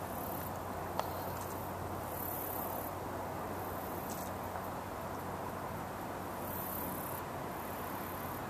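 High-pitched insect trilling that comes and goes in stretches of about a second, over steady outdoor background noise and a faint low hum. A single sharp click about a second in.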